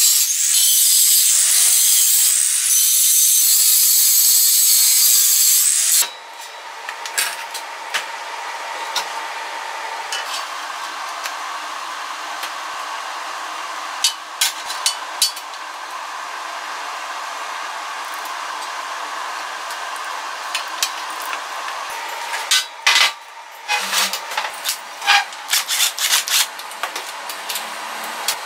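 Angle grinder grinding a welded square-steel frame, a loud, steady hiss whose motor pitch wavers under load; it stops abruptly about six seconds in. After that come scattered metal clicks and knocks from hand tools as bolts are fitted to the steel engine mount.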